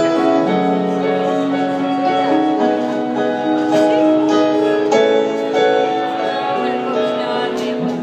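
Live music: the instrumental close of a song, slow sustained chords changing every second or two.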